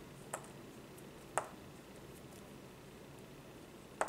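Three sharp clicks of hard plastic, the loudest about a second and a half in, as small black Tamiya TT02 differential parts are freed from their plastic sprue.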